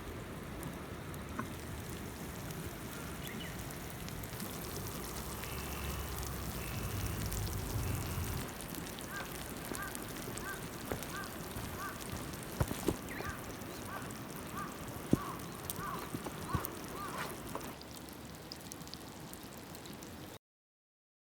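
A bird calling again and again, about a dozen short calls in quick succession, over a steady outdoor background hiss with scattered clicks and snaps. The sound cuts off suddenly near the end.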